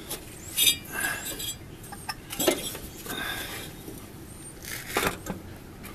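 Handling noise: about five light clinks and knocks spread out, with faint rustling between.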